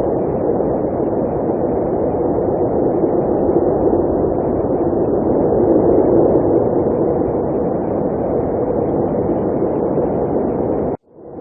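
Blizzard wind blowing as a steady, dense rushing noise. It cuts out abruptly near the end and fades back in.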